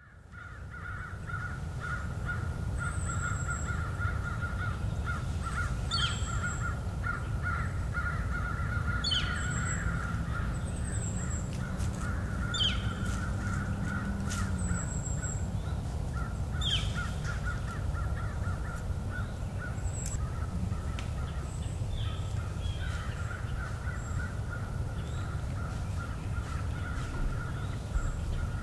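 Woodland sound: crows cawing, with other short bird calls, over a steady pulsing drone and a low rumble.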